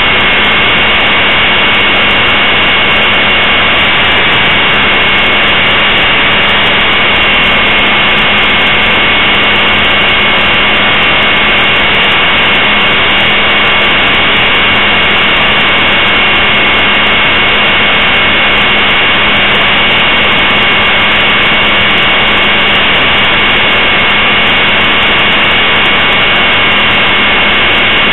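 Blade 450 3D electric RC helicopter in flight, heard close from its onboard camera: a loud, steady whine of its brushless motor and rotor, two high tones held over a dense rushing noise.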